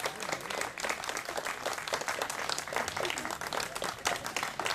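Applause: many people clapping, a dense irregular patter of hand claps.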